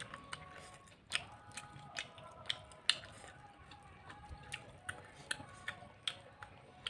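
Close-up chewing and biting of a person eating rice with spiced beef and fried food: a string of sharp, irregular clicks and smacks, roughly one every half second.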